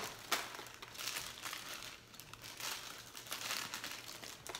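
Paper and plastic crinkling in a series of short, irregular rustles as hands scatter confetti stickers over tissue paper and party bags packed in a gift box.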